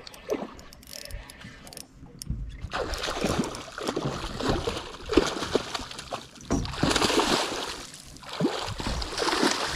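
Hooked redfish thrashing and splashing at the water's surface while being reeled in, the splashing starting about three seconds in and going on in irregular bursts. Light clicking from the spinning reel is heard in the first couple of seconds.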